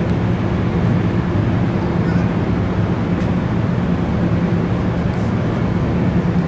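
MARC commuter train standing at the platform with its diesel idling: a steady low drone and rumble, unchanging in level.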